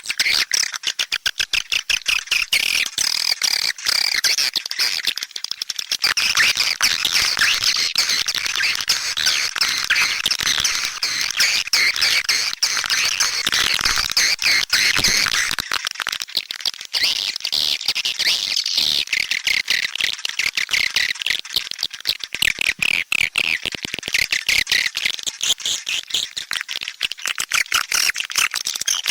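Swiftlet lure call: a dense, unbroken chorus of many swiftlets twittering and chirping rapidly. It is the calling sound played in swiftlet houses to attract the birds.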